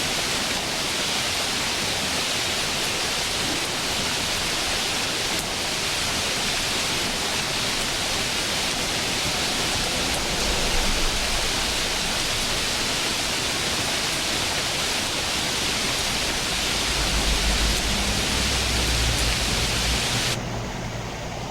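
Running water of a stream: a steady, even rushing hiss. About twenty seconds in the sound changes suddenly, the high hiss dropping away to leave a quieter, duller rush with a low hum.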